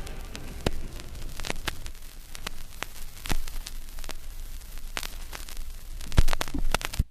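Vinyl record surface noise after the last track: a steady hiss and low hum with scattered clicks and pops, a few louder pops near the end, then cutting off suddenly.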